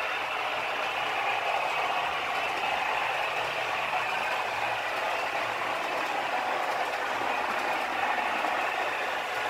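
H0-scale model train running over the layout track: a steady rumble and clatter of small metal wheels on the rails with the drive gearing whirring.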